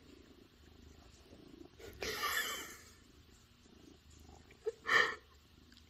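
Domestic cat purring steadily while its back is scratched, with two short, louder sounds: one about two seconds in and a sharper one about five seconds in.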